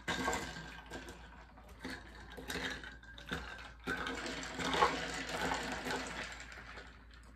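Ice cubes clinking and rattling against a glass as a drink is stirred with a straw: rapid, irregular clicking that comes and goes.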